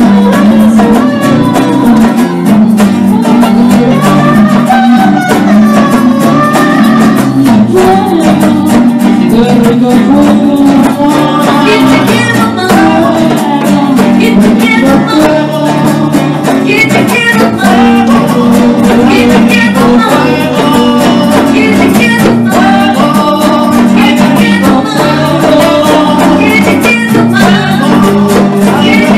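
Live band music: guitars, bongos and a voice singing a song, loud and steady throughout.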